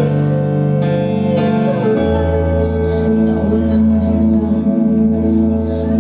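A woman singing a Filipino ballad live into a microphone, with instrumental accompaniment that includes guitar; the low accompanying notes change about two seconds in.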